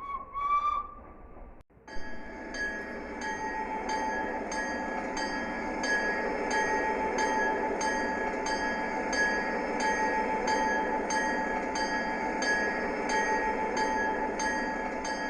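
A short whistle tone rises slightly in pitch in the first second and a half and breaks off. From about two seconds in, a train bell rings steadily about twice a second over the continuous noise of a train, which carries a held tone.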